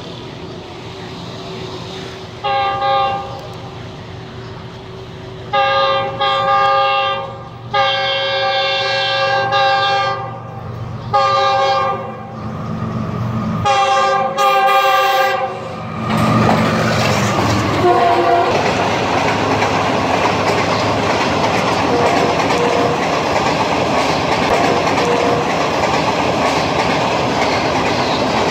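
Pakistan Railways diesel-electric locomotive sounding its multi-tone horn in a series of warning blasts as it approaches, about six in all, some short and some held for a couple of seconds. The locomotive then passes, and the coaches roll by with a steady loud rumble and clickety-clack of wheels over the rails.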